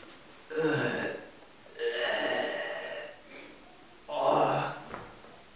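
A man's heavy, voiced gasps and sighs, three of them, the middle one the longest: the groaning breaths of someone exhausted and hurt.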